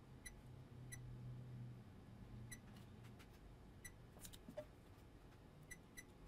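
Near silence: faint room tone with about nine faint, very short high ticks at irregular intervals.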